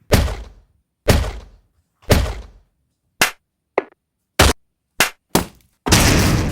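A string of edited-in punch and whack sound effects: three heavy hits about a second apart, each dying away, then five shorter, quicker hits, and a longer noisy crash near the end.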